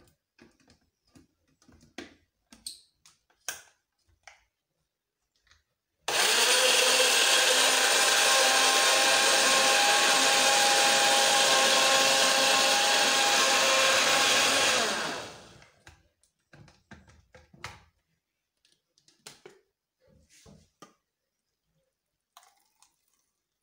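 Countertop blender running steadily for about nine seconds, blending chopped fruit and milk into a smoothie, starting abruptly about six seconds in and winding down near the end of its run. Light clicks and knocks from handling come before and after.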